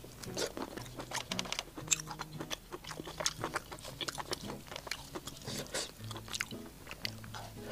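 Close-miked chewing of spicy stir-fried prawn meat: wet mouth clicks and smacks with many short, irregular crackles.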